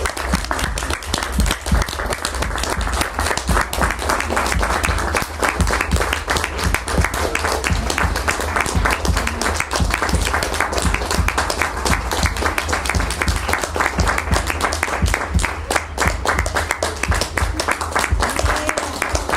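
A group of people applauding, with dense, steady clapping.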